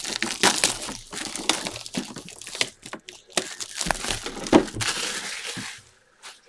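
Plastic shrink wrap on a cardboard box crinkling and crackling as hands work it off, with many irregular sharp crackles.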